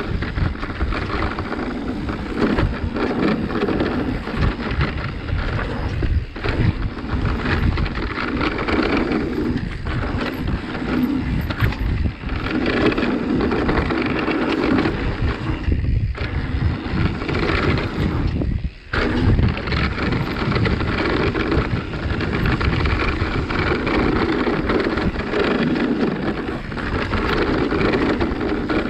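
Mountain bike riding fast down a dirt trail: steady rumble of tyres on dirt and rattle of the bike mixed with wind buffeting the microphone. The noise dips briefly a few times, most deeply about two-thirds of the way through.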